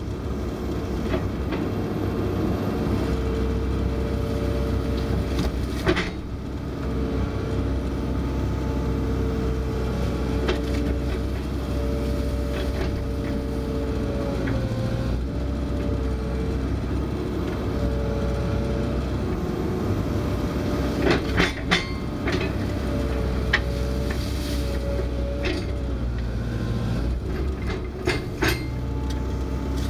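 Kobelco SK160 excavator's diesel engine running steadily, heard from inside the cab, with a hydraulic whine that comes and goes as the boom and bucket move. A few sharp clanks come through, several close together about two-thirds of the way in and again near the end, as the bucket works at old railroad ties.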